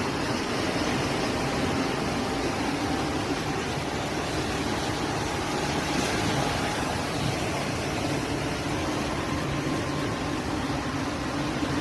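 Fast-flowing floodwater rushing through a street, a steady, unbroken rushing noise.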